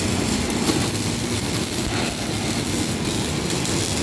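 Arc welding in progress: two welding arcs giving a steady crackling buzz as steel is welded.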